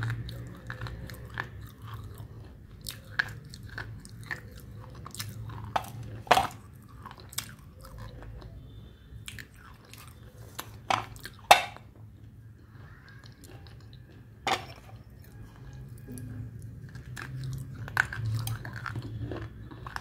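Close-up sounds of a person biting into and chewing a crunchy, powder-dusted brittle food, with sharp crunches loudest about six, eleven and fourteen and a half seconds in.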